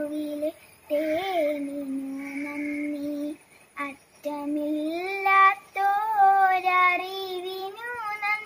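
A young girl singing a Malayalam prayer song alone, holding long notes with short pauses between phrases.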